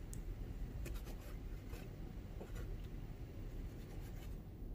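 Chef's knife halving cherry tomatoes on a wooden cutting board: soft, irregular taps and cuts of the blade against the board.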